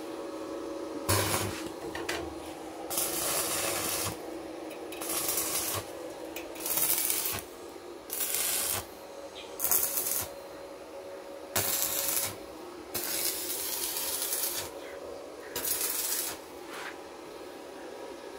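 Stick (arc) welder laying a run of short tack welds on steel auger flighting: about ten bursts of arc crackle and hiss, each half a second to a second and a half long, with short pauses between them.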